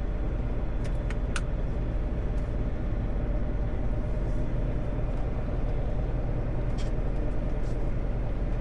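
Semi truck's diesel engine idling, a steady low rumble, with a few faint clicks over it.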